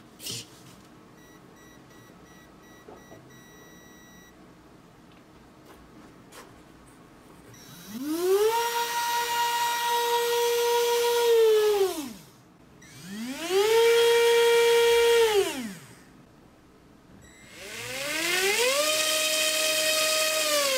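Small electric motor driven through an RC electronic speed controller, spun up three times: each run is a whine that rises in pitch, holds steady and winds down, the last run held at a slightly higher pitch. Early on, a connector clicks and the speed controller gives faint repeated arming beeps.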